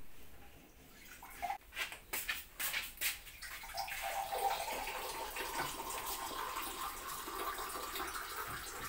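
A few sharp knocks and clatters, then from about four seconds in a steady sound of running water.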